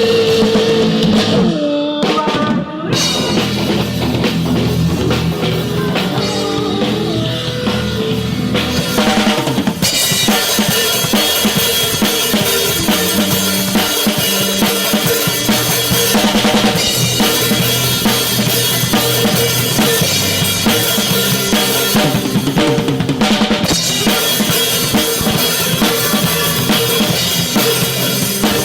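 Rock music played by a full band with the drum kit to the fore, kick and snare driving a steady beat, with a couple of short breaks in the first ten seconds.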